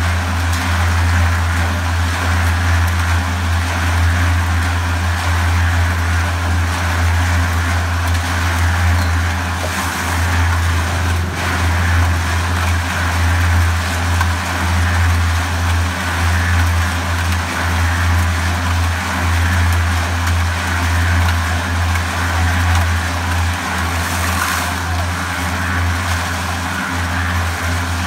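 Drum concrete mixer running steadily, a loud, even, low hum from its drive motor with the drum turning.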